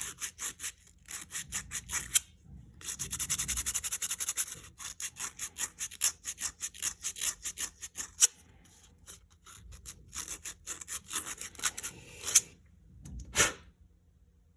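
Bicycle disc brake pads being sanded by hand on sandpaper: quick back-and-forth scraping strokes, several a second, with a short pause about two seconds in and a few sparser strokes near the end. The sanding takes off the top layer of pads that were baked with a gas torch to burn out the oil contamination that makes disc brakes squeal.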